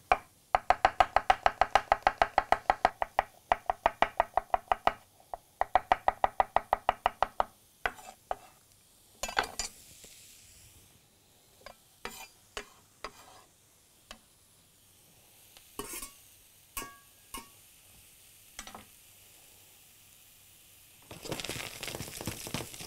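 Knife slicing portobello mushrooms on a wooden cutting board: two runs of fast, even strokes, about five a second, then a few scattered knocks. Near the end, a short burst of sizzling as the sliced mushrooms go into a hot dry pan.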